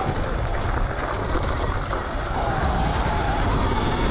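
Sur-Ron Light Bee electric dirt bike riding along, heard mostly as a steady rush of wind and ground noise on the GoPro's microphone. A faint wavering whine, typical of the electric motor, comes in about two seconds in.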